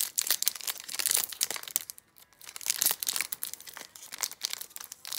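Foil wrapper of an Upper Deck Allure hockey card pack crinkling and tearing as it is worked open by hand, with a brief pause about two seconds in.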